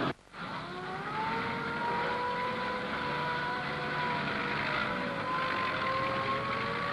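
Fire engine sirens winding up together to a steady wail at several pitches, over the rumble of the trucks' engines.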